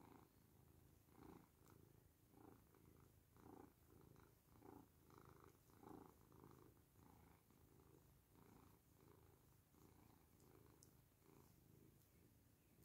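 Domestic cat purring: a faint, continuous purr that swells and fades with each breath, about once a second, as its head and face are stroked, a sign of contentment.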